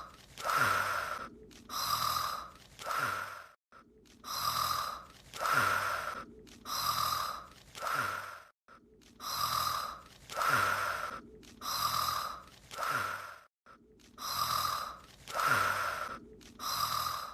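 An anime character's voiced, cartoonish snoring, looped. Four breathy snore strokes about a second apart, then a brief pause, the same cycle repeating every five seconds.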